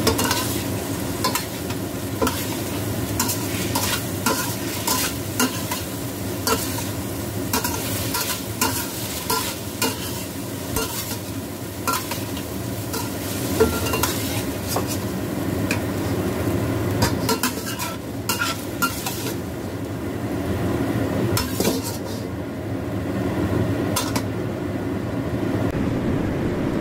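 Chicken pieces sizzling in oil in a metal pan, stirred with a wooden spatula that scrapes and knocks against the pan again and again. Near the end the sizzling hiss dies down.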